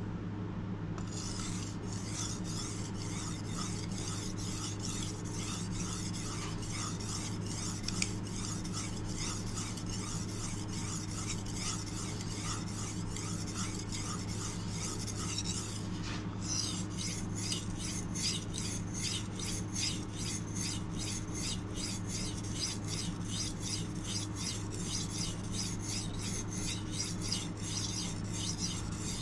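Kitchen knife blade stroked back and forth across a whetstone: steady, rhythmic scraping at about two strokes a second, pausing briefly about sixteen seconds in, then resuming.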